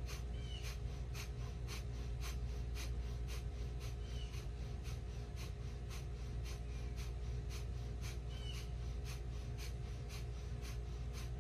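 A woman's rapid, forceful exhalations through the nose, about two short, even puffs a second, with no audible inhalation between them: kapalabhati-style cleansing breath.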